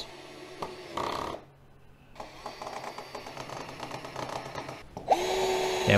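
Cordless drill pre-drilling a pilot hole into a wooden frame corner: faint handling noise at first, then the drill motor starts about five seconds in with a steady whine.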